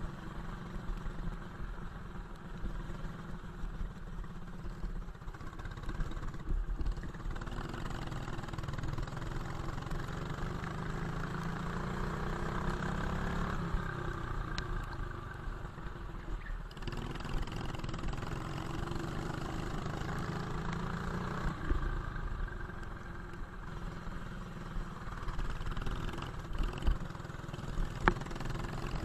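Go-kart engine at racing speed, heard from on board with wind and road noise. Its pitch rises as the kart accelerates and drops sharply when it lifts for corners.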